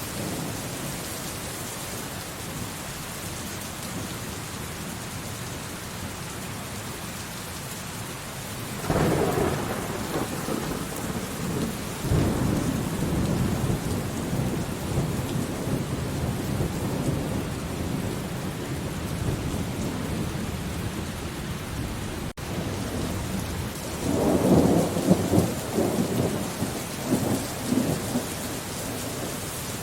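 Steady rain falling, with thunder breaking in: a sudden rumble about a third of the way in that rolls on for several seconds, and a rougher, crackling peal of thunder near the end.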